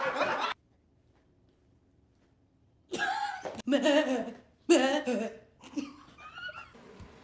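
People laughing in several short bursts, starting about three seconds in after a pause of near silence.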